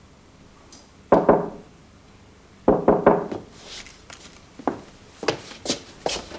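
Knocking: one sharp knock about a second in, then three quick knocks near the middle, followed by a run of lighter clicks and taps.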